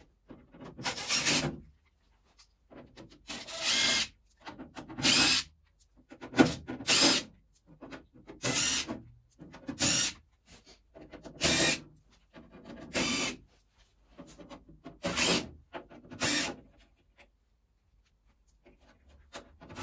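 DeWalt cordless driver running in short bursts as it backs out the screws around a carbon-fibre door panel, about eleven bursts each under a second long, stopping for a second or so between screws.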